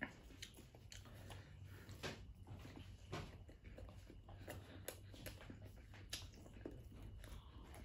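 Faint close-up chewing of boiled eggs, with scattered wet mouth clicks and light taps over a low steady hum.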